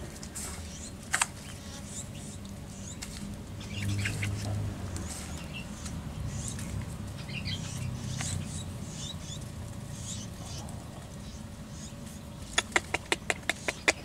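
Small birds in an aviary making scattered faint chirps over a low steady hum, with a single tick about a second in and a quick run of about eight sharp ticks near the end.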